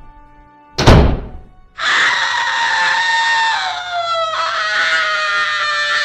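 A heavy oven door slammed shut with a thud about a second in, then from about two seconds in a long scream that slowly falls in pitch: the witch being shut in the oven.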